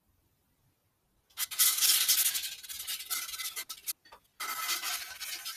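Abrasive rubbed by hand over the textured, India-ink-blackened surface of a wooden bowl, sanding the ink back: a dry rubbing hiss in two spells, the first starting a little over a second in and lasting about two and a half seconds, the second after a short pause near the end.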